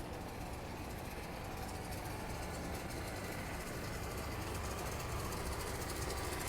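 City street traffic: a steady low rumble of vehicle engines under a general street hum, growing slightly louder near the end.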